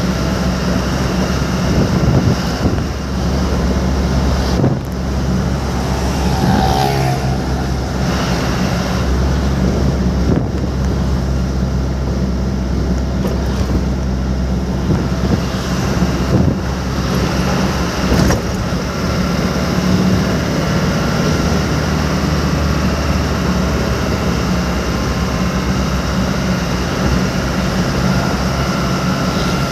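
A vehicle driving along: a steady low engine hum under continuous road noise. A short wavering pitched sound comes in about six seconds in.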